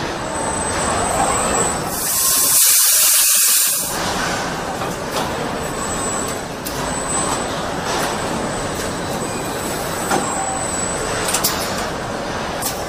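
Car assembly-line machinery running steadily, with a loud compressed-air hiss lasting about two seconds near the start and a few sharp clicks near the end.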